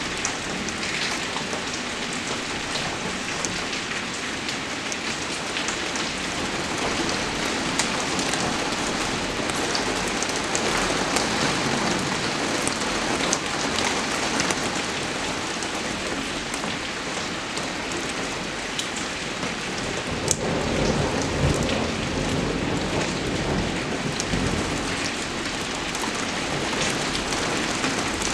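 Steady rain falling on a surface, with many individual drops ticking sharply through the hiss. A low rumble swells about twenty seconds in and fades.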